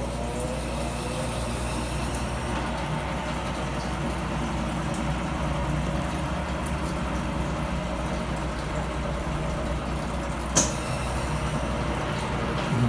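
Brastemp 15 kg top-load washing machine running after its loose basket was fixed, a steady motor hum with a single sharp click about ten and a half seconds in.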